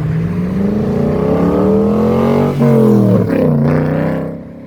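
A Cobra's V8 accelerating hard past, its pitch climbing, with a quick upshift about two and a half seconds in. It climbs again, then the note drops and fades as the car goes by.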